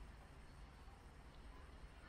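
Near silence: only a faint, steady background noise with a low rumble.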